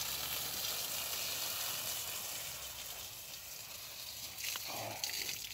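Garden hose jet spraying water onto sweet potato leaves: a steady hiss of water hitting the foliage.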